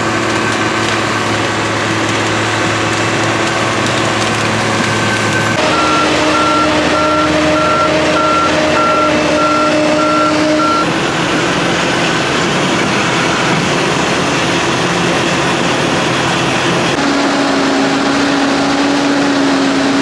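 Diesel engines of heavy earthmoving equipment running steadily, the sound changing abruptly a few times. Starting about a third of the way in, a backup alarm beeps for about five seconds at about two beeps a second: the Case crawler dozer backing up.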